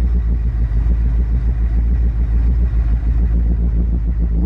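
Twin-turbo 400 cubic inch Windsor-style V8 in a Ford Mustang idling steadily, heard from inside the car; the owner says it is running very rich ("fat") at idle.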